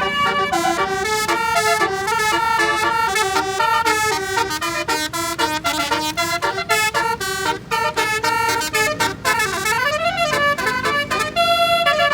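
Basuri telolet bus horn playing a fast melody, its notes changing several times a second. About three quarters of the way through, the pitch sweeps down and back up.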